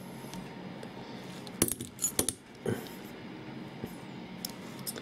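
Small metal clicks and clinks from a Schlage-style lock cylinder being handled and turned over in the fingers: a quick cluster of four sharp ticks from about one and a half to nearly three seconds in, and one fainter tick later.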